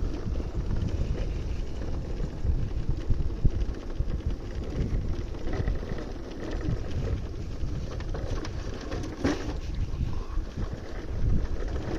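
Wind rumbling on the microphone over a Bajaj Pulsar 220's single-cylinder engine running as the motorcycle is ridden, with a short knock about nine seconds in.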